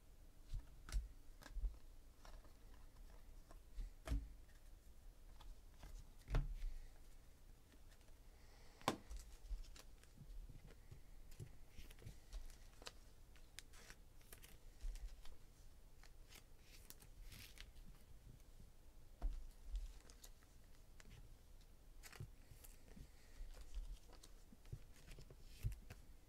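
Faint handling of trading cards: scattered light clicks and taps of card stock as cards are shuffled and set down, with a few soft thumps.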